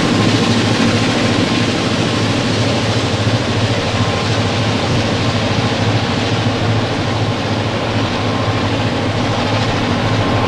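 Grain hopper wagons rolling past on the rails: a steady rumble and hiss of wheels on track, with a low drone underneath.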